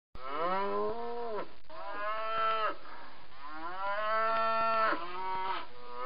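A herd of cattle mooing: several long moos one after another, some overlapping, from more than one cow.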